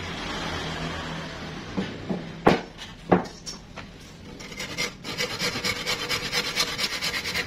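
Two sharp knocks, then a handsaw cutting into wood from about four and a half seconds in, with quick, even back-and-forth rasping strokes.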